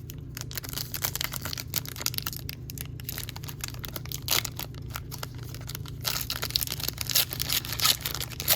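Foil wrapper of a trading card pack being torn open and crinkled in the hands: irregular crackling, busiest and loudest in the last couple of seconds.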